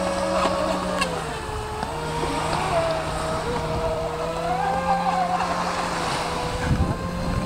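Brushless electric motor of an RC speedboat whining at speed. Its pitch drops about a second in and then holds steady, with a second whine wavering above it, over wind and wave noise.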